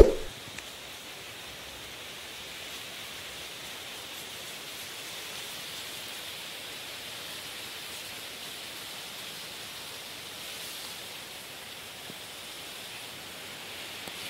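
A steady, even hiss with no distinct events, opening with a brief knock.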